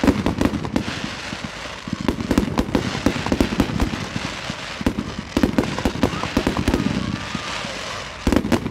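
Fireworks display: rapid barrages of shell bursts, many sharp bangs and cracks in quick succession over continuous crackling. The bangs come in clusters, the heaviest at the start, from about two to three seconds in, from about five to seven seconds in, and again near the end.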